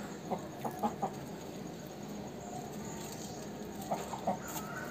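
Aseel rooster clucking in short calls: a handful in the first second and two or three more near the end.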